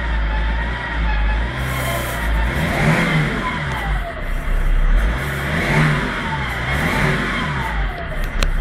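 BMW E61 530d's straight-six diesel revved up several times, with a whistling turbocharger whine that wavers and glides down as the revs drop. The owner takes it for a bad turbo sound.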